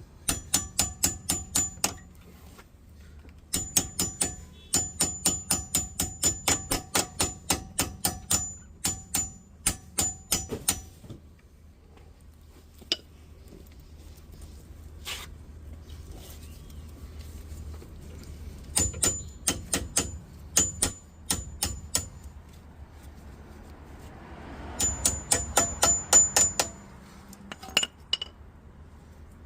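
Hammer tapping a steel punch to drive a stuck pad retaining pin out of a Jaguar XJ-S front brake caliper, each tap ringing metallically. The taps come in several quick runs of about four or five a second, with pauses between. The pin is stuck, which the mechanic puts down to it possibly having rusted in.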